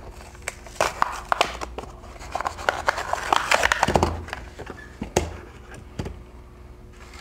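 Clear plastic blister packaging crinkling and crackling as it is torn open and peeled off a Hot Wheels die-cast toy truck, busiest around the middle, followed by a few sharp knocks as the small metal truck is handled and set down on a table.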